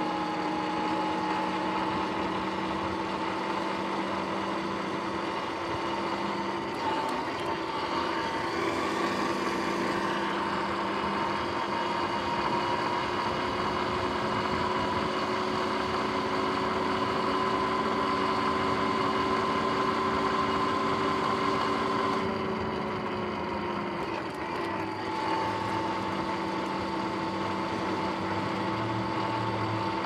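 Sur-Ron X electric dirt bike's motor and drivetrain whining as it rides along, a two-note whine that creeps slowly up in pitch as it gathers speed. The pitch drops a little about three-quarters of the way through, then holds steady.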